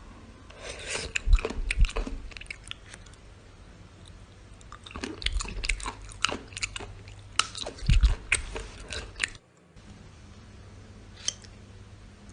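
Slime being worked by hand, giving off crackling, popping clicks in two bursts. The second burst cuts off suddenly about nine seconds in.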